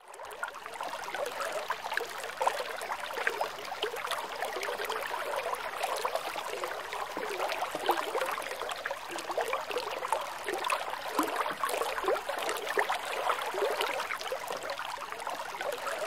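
Water trickling and lapping: a steady, irregular babble of small splashes.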